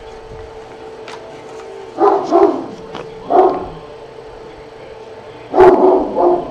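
A dog barking in short barks: about three close together roughly two to three and a half seconds in, then another two or three near the end. A steady faint hum runs underneath.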